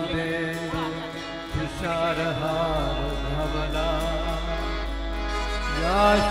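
A man singing a Hindu devotional bhajan to harmonium accompaniment. The voice bends and glides between notes over the harmonium's steady held tones.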